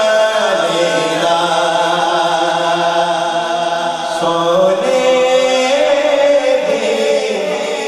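A man sings a naat, an Islamic devotional song in praise of the Prophet, into a microphone with no instruments. He holds long notes and bends them from pitch to pitch.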